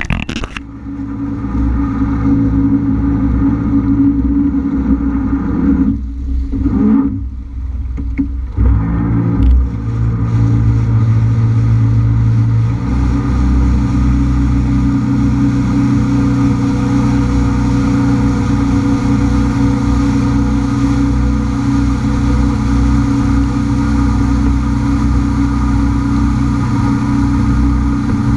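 Honda F-12X AquaTrax personal watercraft's turbocharged engine running under way. The sound dips briefly twice, about six and seven and a half seconds in, then settles into a steady drone.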